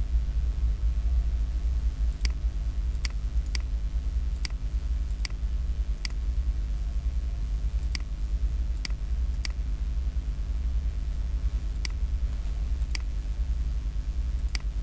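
About a dozen sharp, irregularly spaced computer mouse clicks as truss members are drawn point to point, over a steady low hum.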